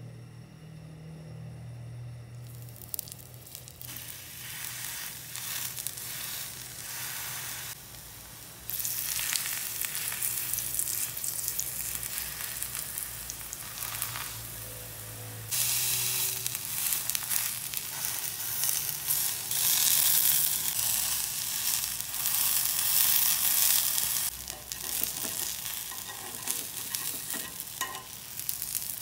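Halved, scored eggplants frying in hot oil in a cast-iron skillet: a steady sizzle that steps up louder twice, about a third of the way in and again about halfway.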